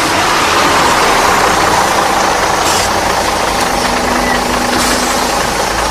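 Subway train running: a loud, steady rumble and hiss of the moving car, with a couple of brief rattles.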